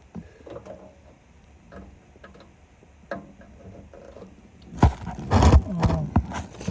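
Hands connecting wires on a furnace control board: faint small clicks and scrapes, then louder rustling and knocks from about five seconds in.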